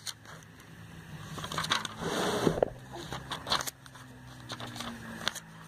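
Glossy catalogue pages being handled and turned: paper rustling and crinkling, with a louder swish of a page turning about two seconds in.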